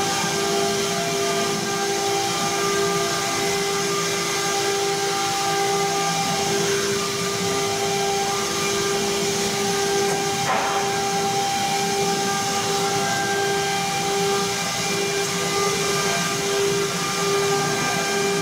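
Stone CNC router's spindle running at a steady speed while the head travels along the gantry: a steady whine over a hiss. There is a short click about ten and a half seconds in.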